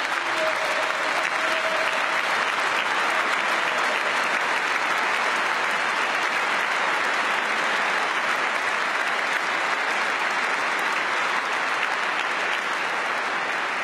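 A large audience applauding steadily, a dense crowd of hand claps.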